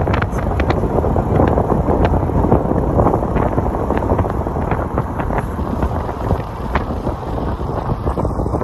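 Wind rushing and buffeting over the microphone of a camera filming from a moving car, with the car's road noise underneath and scattered small clicks.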